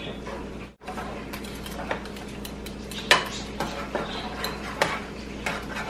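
A utensil stirring peanut butter into simmering broth in a nonstick frying pan, with irregular clicks and scrapes against the pan.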